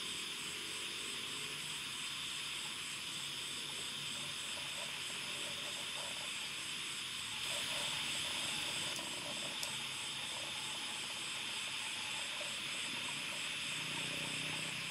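Night-time insect chorus: a steady high hiss with a faint, evenly pulsing trill above it.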